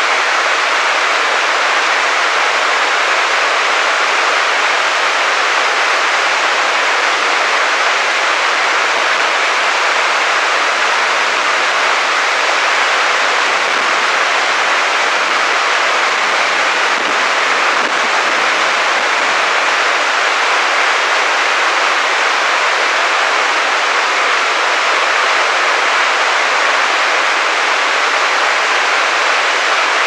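Waterfall tumbling down a rocky channel: a steady, loud rush of white water.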